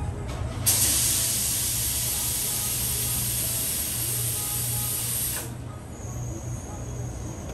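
A jet of pressurised gas hissing steadily for about five seconds, starting a little under a second in and cutting off suddenly, over a steady low hum.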